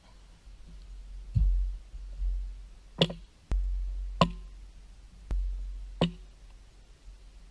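Wind buffeting the microphone in gusts, with a few sharp wooden clacks of a kendama's ball and ken knocking together, about three, four and six seconds in.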